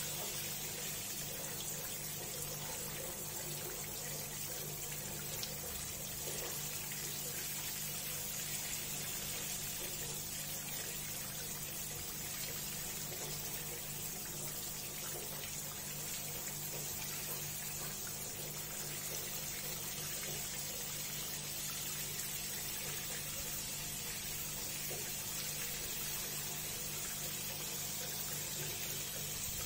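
Water running steadily from a tap, filling a bath, with a low steady hum underneath.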